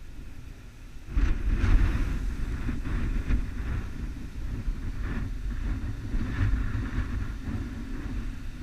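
Wind buffeting a GoPro's microphone: a heavy, gusting low rumble that comes up suddenly about a second in, with a few short scrapes over it.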